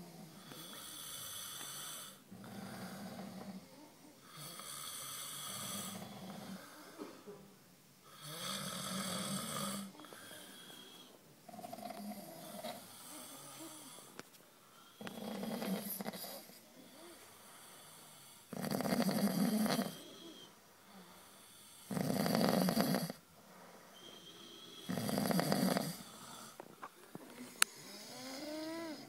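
A sleeping man snoring, one snore about every three seconds, the snores getting louder in the second half.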